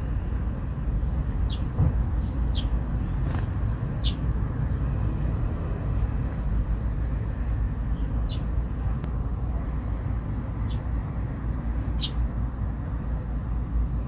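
Eurasian tree sparrows give short, sharp chirps every second or two over a steady low background rumble.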